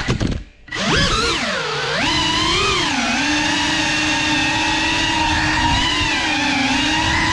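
CineLog35 cinewhoop quadcopter's brushless motors whining, a stack of pitches that rise and fall together with the throttle. About half a second in the motors cut out almost completely, then spool back up with a rising whine.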